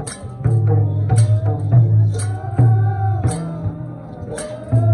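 Nepali folk music for a Maruni dance: a deep drum beating a steady rhythm, sharp cymbal clashes on the beat, and a wavering melody line above.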